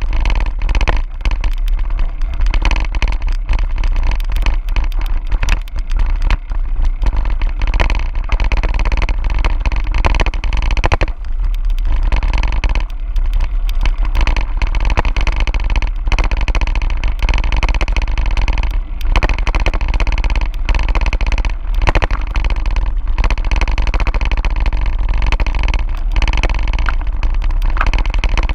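Wind rushing steadily over the microphone while a mountain bike rolls down a gravel dirt road. The tyres crunch over the gravel and there are irregular knocks and rattles from bumps in the track.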